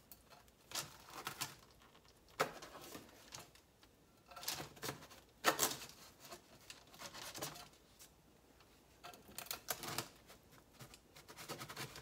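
A knife slicing through a cauliflower pizza crust with a crisp bottom on parchment paper: irregular crunches, scrapes and light taps, with some paper rustling.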